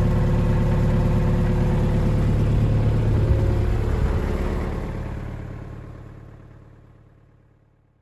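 Nuffield tractor engine of an old backhoe running steadily through its newly welded exhaust pipe, with a strong low drone. It fades out smoothly over the last four seconds.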